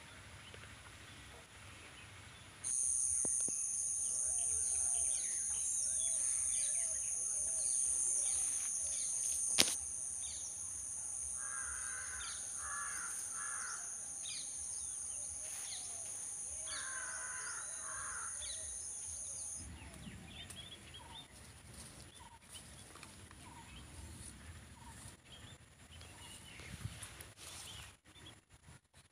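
Garden ambience: a steady, high-pitched two-tone whine that starts and stops abruptly. Over it a crow caws three times in quick succession, then twice more a few seconds later, with one sharp click before the caws.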